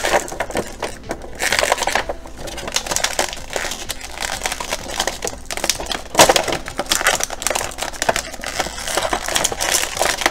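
Clear plastic blister tray crinkling and crackling in the hands in irregular bursts as an action figure is pried out of it.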